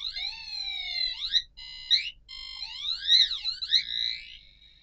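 Otto robot's buzzer playing its built-in cute sounds in a loop: quick electronic chirps sweeping up and down in pitch, fading out near the end.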